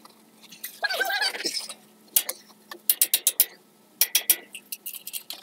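Runs of sharp metal clicks and taps from a socket wrench and hammer working on the drain plug of a Ford 2N tractor's transmission housing. There is a short grunt or voice about a second in.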